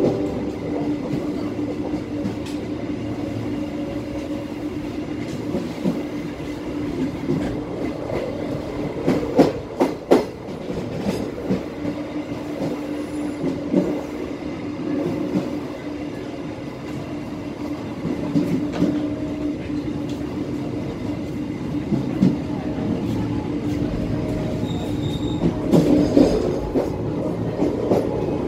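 Bengawan passenger train running along the track, with a steady rumbling hum and sharp clacks as the wheels pass over rail joints and points. A cluster of the loudest clacks comes about nine to ten seconds in, and another near the end.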